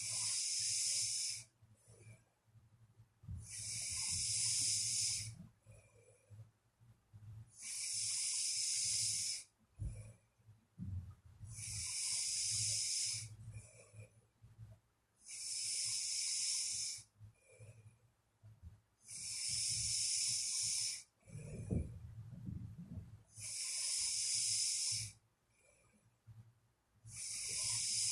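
A sleeping person snoring, with an airy, hissing breath about every four seconds in a slow, even rhythm.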